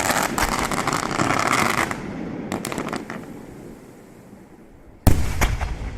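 Fireworks display: a dense volley of crackling reports for about two seconds, then a few scattered cracks and a lull, and a single sudden loud bang about five seconds in, followed by a couple of quick cracks and a fading rumble.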